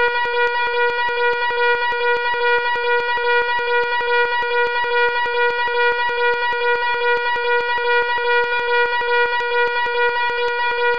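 Loud fire alarm sounding continuously: a steady buzzing tone that pulses rapidly, about four times a second, without a break.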